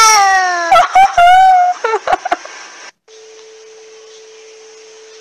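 Domestic cat giving a long, drawn-out meow that falls in pitch, then a shorter wavering one, a talking-cat answer to being asked to say 'I love you'. A few short clicks follow, and a little under three seconds in the sound cuts to a faint steady hum.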